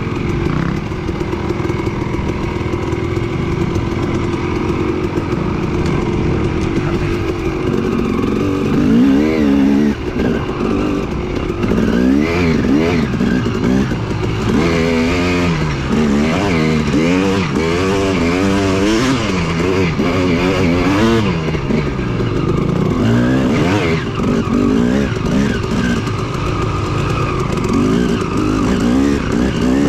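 Yamaha WR450F dirt bike's single-cylinder four-stroke engine under way, steady for the first several seconds, then revving up and falling back again and again as the throttle is opened and closed.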